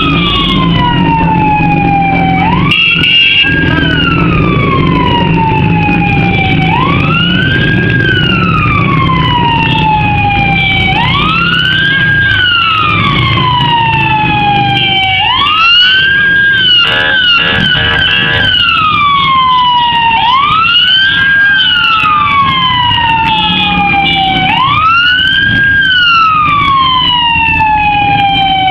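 A siren wailing, each cycle rising quickly and falling slowly, repeating about every four seconds. Under it is the running rumble of motorcycle and car engines.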